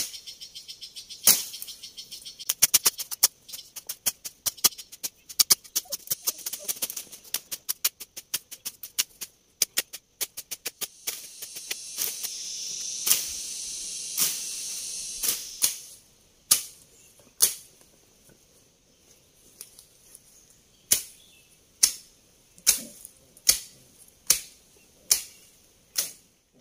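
A long series of sharp knocks and clicks from hand tools at work in garden ground, at times in fast runs of several a second, with a hiss that swells and fades about twelve to sixteen seconds in.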